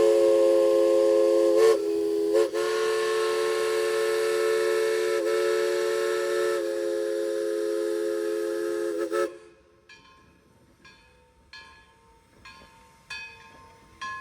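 East Broad Top locomotive 16's steam whistle blowing one long, loud chord with a hiss of steam, wavering briefly twice near the start and cutting off after about nine seconds. Then the locomotive bell rings softly, about one stroke a second.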